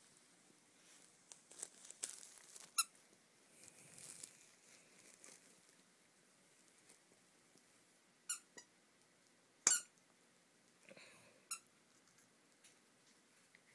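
Squeaker inside a plush gorilla toy squeaking as a puppy chews it: about five short squeaks, the loudest about ten seconds in, with soft rustling of the toy and bedding.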